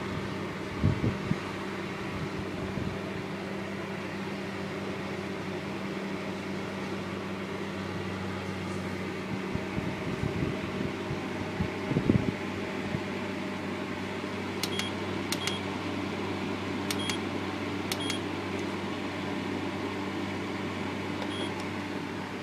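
Silvercrest 2000 W electric fan heater running steadily on full power, a constant fan whoosh over a low motor hum. A couple of knocks about a second and twelve seconds in, and near the end several short high beeps from its control panel as buttons are pressed.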